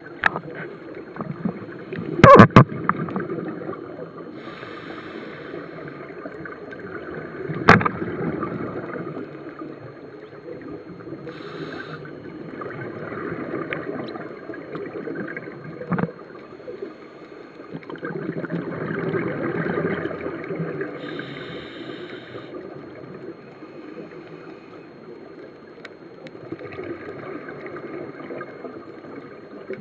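Scuba diver's regulator breathing heard underwater, a cycle of hissing in-breaths and rushing bubble exhalations every few seconds. A few sharp knocks, the loudest about two seconds in.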